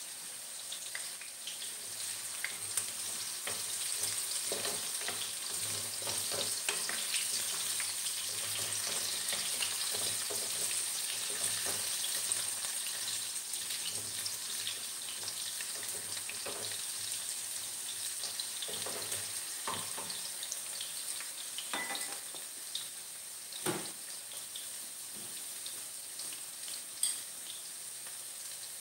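Cubed carrots and potatoes sizzling and crackling as they fry in hot oil in a pan, a steady hiss dotted with small pops. A spatula stirs them partway through, and a few sharper clicks come in the latter part.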